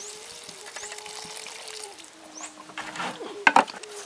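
Hands rinsing a basin of June beetles in water: trickling and sloshing as the wet beetles are stirred, with two sharp, loud clatters about three and a half seconds in.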